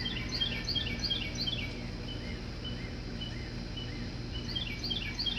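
A songbird chirping: quick runs of short, high notes, about three a second, that pause in the middle and pick up again near the end. A steady low hum runs underneath.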